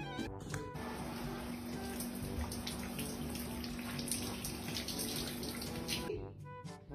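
Running water pouring in a steady rush, with a faint steady hum under it. It starts just under a second in and cuts off abruptly about six seconds in, when music takes over.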